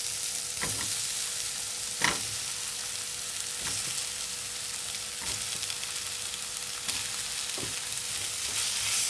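Soaked soya chunks sizzling in hot oil and spice paste in a nonstick pan as they are tipped in and pushed around with a wooden spatula, a steady frying hiss with a few soft knocks as the chunks land and the spatula moves.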